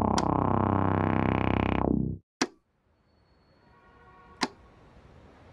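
A loud held musical chord lasting about two seconds that cuts off suddenly. Then a sharp click, near silence, and faint hiss with another click near the end.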